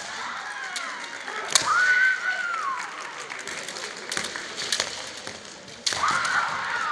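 Kendo kiai shouts from female players: one long high yell rising and then falling, about one and a half to three seconds in, and another starting near the end, over scattered sharp taps.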